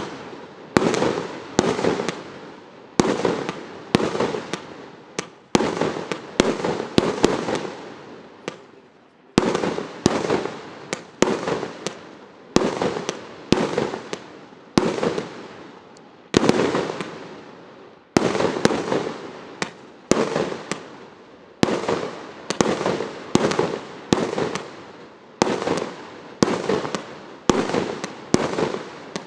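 A multi-shot fireworks cake firing shot after shot, about one a second. Each sharp report trails off in a fading hiss, with a few short pauses between volleys.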